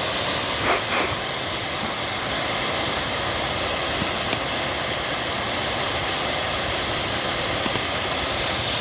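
Steady rushing of a waterfall, a constant hiss of falling water, with two short high blips about a second in.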